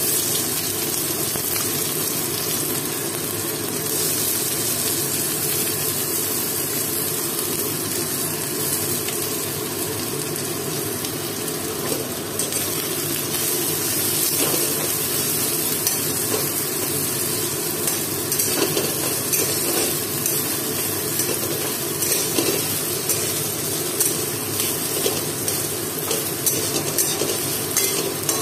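Sliced onions sizzling in hot oil in a metal wok, being fried into beresta (browned fried onions) for biryani. The sizzle starts suddenly as the onions go in, with a metal spatula scraping and stirring them now and then.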